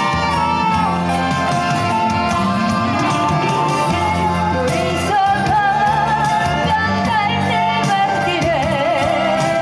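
A solo singer sings a slow Korean popular song over instrumental accompaniment, ending the phrase with a long held note in wide vibrato.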